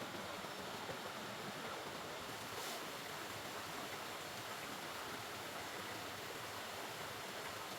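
River water flowing: a steady rush of running water.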